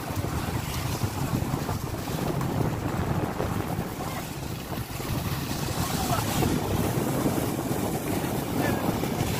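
Wooden purse-seine fishing boat running at sea: a steady low engine drone under wind buffeting the microphone and sea water rushing and splashing along the hull.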